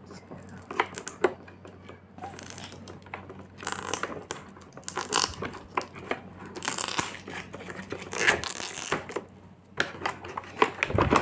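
Cardboard toy box and its plastic wrapping being handled and opened: irregular scraping and crinkling with scattered small clicks.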